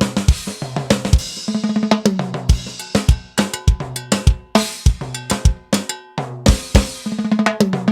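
Drum kit and timbales playing irregular hits and quick rolls with cymbal and hi-hat strokes, and low ringing notes underneath. This is the percussion being checked in a live sound check.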